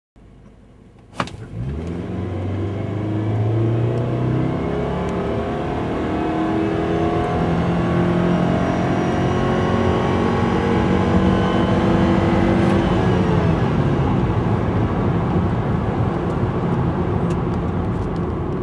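2012 Subaru Impreza 2.0i Sport's 2.0-litre flat-four engine with a CVT, heard from inside the cabin under a full-throttle launch. After a quiet idle and a sharp click about a second in, the revs climb, then the CVT holds them at a nearly steady pitch for several seconds while the car gains speed. The revs then fall away as the throttle is released, leaving engine and road noise.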